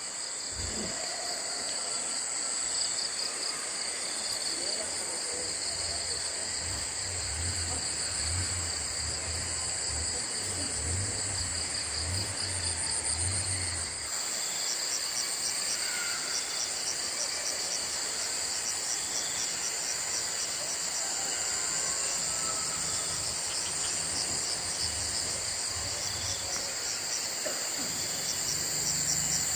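A dense chorus of insects such as crickets, trilling steadily and high, with a faster pulsing chirp joining about halfway through. A low pulsing hum is also heard for several seconds in the first half.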